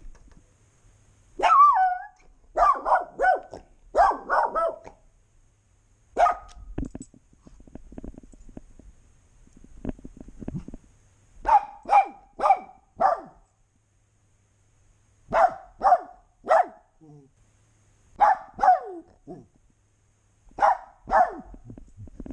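A small fluffy dog barking in short groups of one to four loud barks with pauses between, picked up very close by a camera strapped to the dog's own back. Faint rustling from the dog moving fills one of the pauses.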